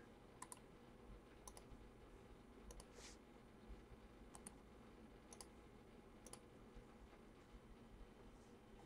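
Faint computer mouse clicks, a dozen or so at irregular intervals, over near silence.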